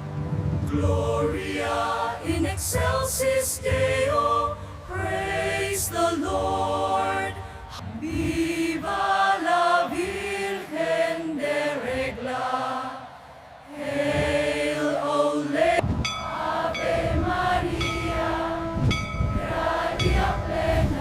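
Choral music: a choir singing long held, hymn-like notes over accompaniment, briefly dropping away about thirteen seconds in.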